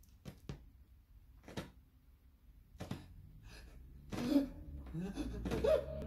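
A few scattered clicks and pops from the stylus in the lead-in groove of a 7-inch vinyl single on an EMT 948 broadcast turntable. The record's music starts about four seconds in.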